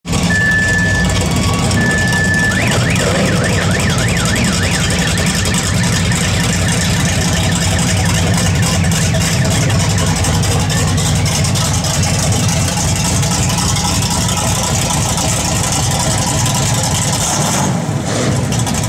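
Engine of a classic Ford F-100 pickup running with a steady low rumble as it drives slowly past. A few short high beeps come in the first couple of seconds.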